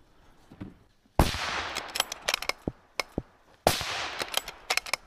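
.308 Winchester bolt-action rifle fired twice, about two and a half seconds apart, each shot trailing off in a short echo. Sharp metallic clicks come between and after the shots as the bolt is cycled.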